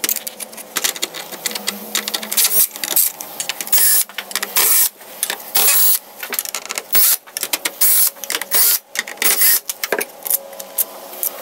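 Cordless drill with a Phillips bit backing screws out of a Yamaha MOXF8 keyboard's case, running in many short bursts with clicks in between.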